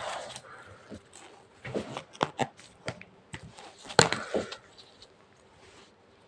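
Hands handling a small object: a scattered series of light taps, clicks and short knocks, about half a dozen, the loudest about four seconds in.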